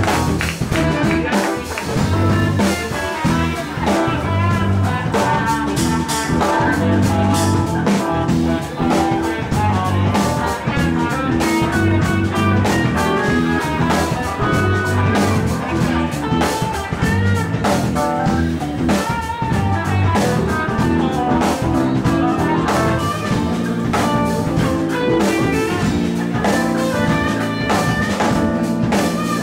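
Live jazz band playing an instrumental passage, with saxophone, electric guitars and drum kit.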